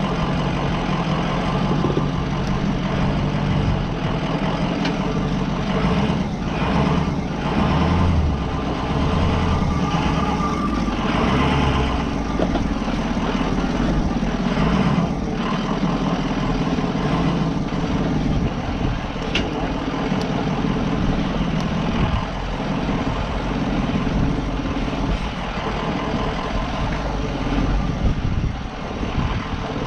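Ford E350 Sportsmobile van's engine running steadily at low speed as it goes down a rocky 4x4 trail, with a run of knocks and rattles in the middle.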